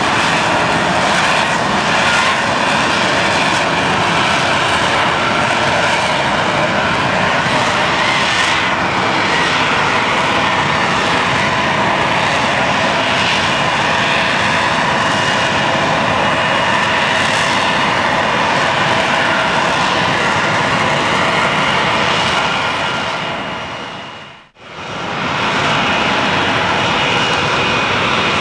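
F-35B Lightning II hovering on its jet engine and lift fan: a loud, steady jet roar. About 24 seconds in, the sound drops away briefly to almost nothing and then comes back.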